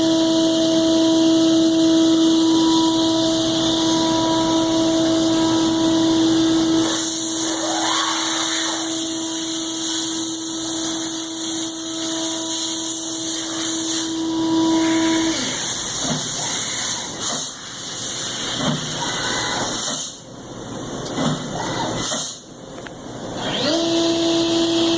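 Brother Speedio S700X1 CNC mill spindle running at 19,500 RPM, a steady high whine, with a hiss joining about a quarter of the way in. About fifteen seconds in the spindle winds down. A few short whirs rising and falling in pitch follow, and near the end it spins quickly back up to the same steady whine.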